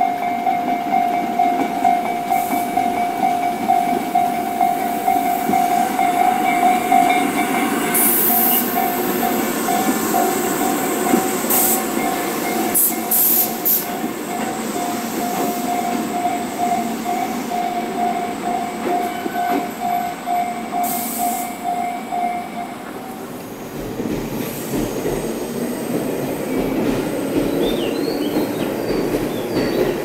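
A level-crossing bell rings in a steady repeating tone while a two-car Tobu 8000-series electric train runs past close by. The train's wheels rumble and clatter on the rails, with a few short high squeals. The bell stops about three-quarters of the way through, leaving the train's running noise as it rolls in.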